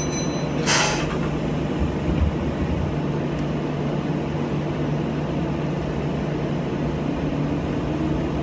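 Meitetsu 6000 series electric train heard from the driver's cab: a steady hum while standing, and a short hiss of air about a second in. Near the end a rising whine begins as the traction motors start the train moving.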